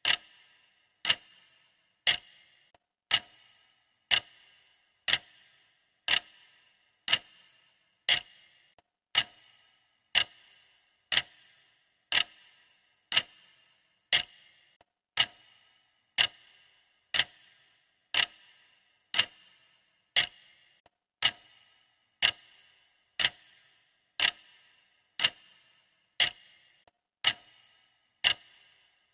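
Clock ticking sound effect, one sharp tick about every second with a brief ring after each, steady and even.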